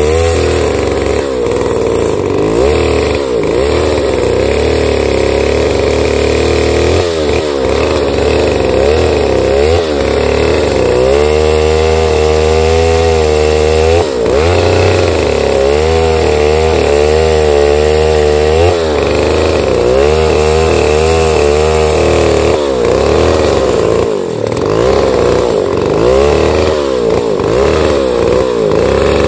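Stihl 070 two-stroke chainsaw ripping lengthwise through a large pine log under heavy load, its engine pitch continually rising and falling as the chain cuts.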